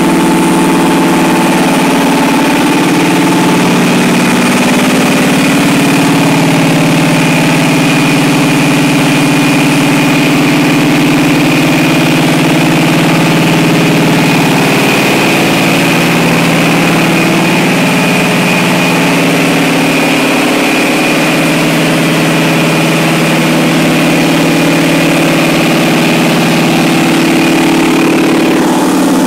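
Detroit Diesel 12-149 two-stroke V12 diesel engine running steadily on a test stand, its note wavering slightly in pitch, with a thin steady high whine over it.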